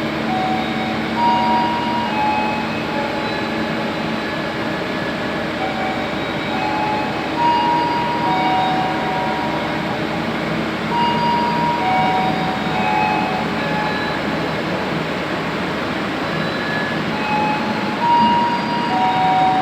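Diesel-hauled passenger train pulling out of a station, the locomotive's engine running steadily. A repeating run of short, clear high tones sounds over it every few seconds.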